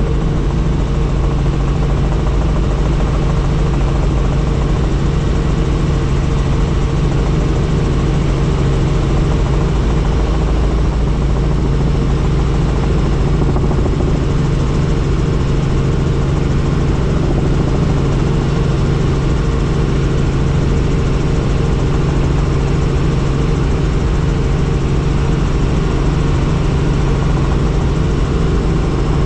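Helicopter engine and rotor running steadily in flight: a constant, loud, low drone that does not change.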